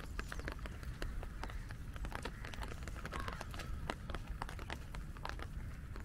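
Raindrops tapping irregularly on an umbrella over a steady low rumble, with a bird calling harshly around the middle.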